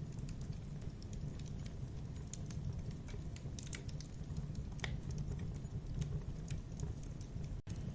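Campfire of burning wood: a steady low rumble with frequent small crackles and pops. The sound cuts out for an instant near the end.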